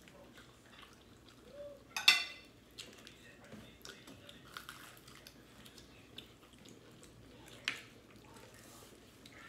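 Quiet eating sounds at a table: plastic forks clicking against plastic plates, and chewing. A brief, louder clatter comes about two seconds in, and another sharp click later.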